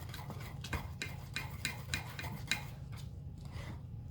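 Spoon clicking and scraping against a bowl in quick repeated strokes while slime is stirred, fading out about three seconds in.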